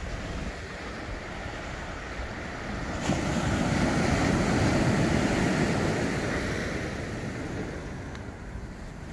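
Ocean surf on a beach: a wave breaks about three seconds in, swells to a loud wash and fades away over the next few seconds. Wind rumbles on the microphone throughout.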